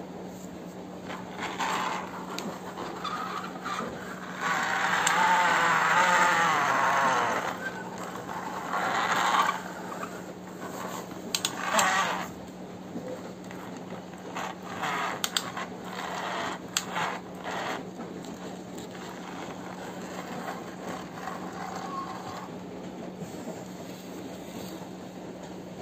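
Battery-powered plastic toy excavator crawling on its plastic tracks over a concrete floor: its small motor and gears whir in stretches, loudest with a wavering pitch for a few seconds about five seconds in, with plastic clicks and scrapes in between. A steady low hum sits underneath.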